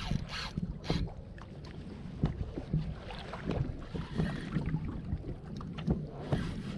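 Irregular light knocks and clicks on a kayak, over a steady low rumble of wind on the microphone.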